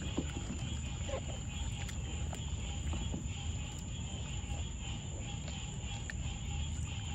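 Baby raccoons dabbling and paddling with their paws in the shallow water of a plastic kiddie pool, making small splashes and clicks, over a steady chirring chorus of night insects.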